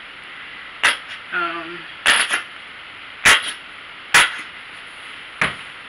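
Five sharp knocks about a second apart from a nearly empty bottle of leave-in conditioner being shaken and knocked to get the last product out, with a short hummed voice sound after the first.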